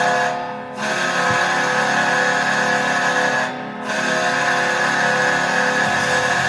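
Buffalo Sabres goal horn blasting in long steady blasts, with two short breaks about half a second and three and a half seconds in, played back through computer speakers.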